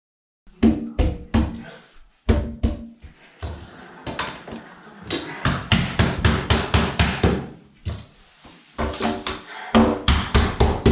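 Background music with a steady drum-kit beat and pitched notes over it, starting suddenly about half a second in.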